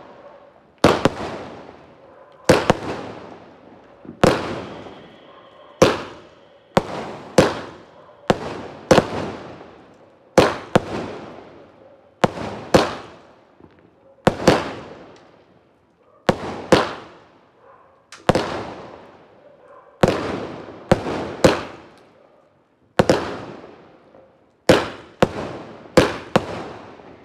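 Multi-shot aerial fireworks cake firing in rapid succession: sharp bangs about every second, some in quick pairs, each fading off after the report.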